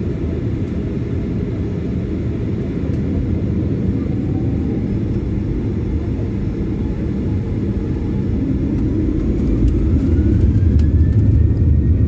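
Jet airliner's engines heard from inside the passenger cabin: a steady low rumble with a faint whine rising in pitch, growing louder over the last few seconds as the engines spool up for the take-off run.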